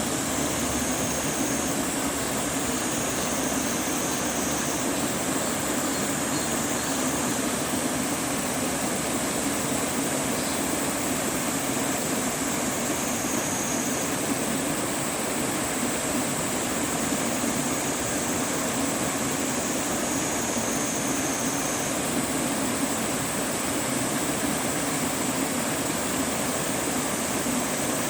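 Mountain valley stream running with a steady rush of water. A faint high thin tone comes and goes about four times.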